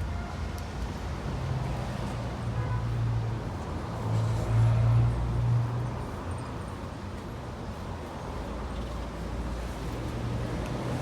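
Motor vehicle running with a low, steady hum that swells and grows louder for a second or two about four seconds in.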